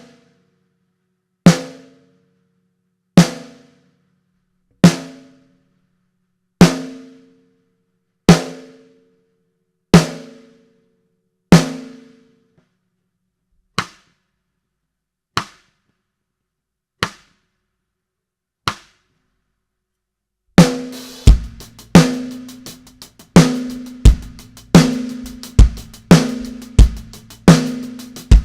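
Ludwig Black Beauty snare drum struck with single strokes about every 1.7 seconds, each hit ringing briefly with a clear pitched ring, followed by four quieter, shorter hits. About 20 seconds in, a full drum-kit beat starts, with bass drum, snare and cymbal hits.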